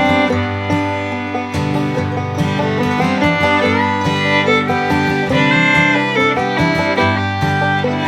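Upbeat instrumental background music with fiddle and plucked strings, in a bluegrass or country style.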